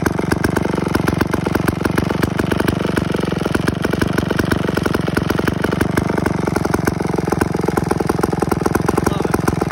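McCulloch 549 two-man chainsaw's two-stroke engine idling with a rapid, even firing beat, resting on the ground and not cutting.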